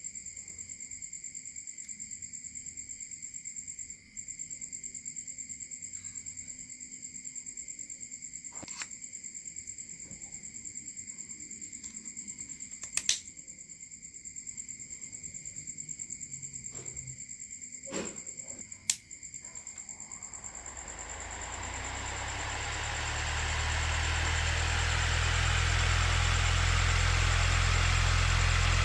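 A steady high-pitched pulsing tone with a few sharp clicks, then about two-thirds of the way through a small high-speed DC motor fan starts and spins up over a few seconds into a loud, steady whir with a low hum and a rush of air.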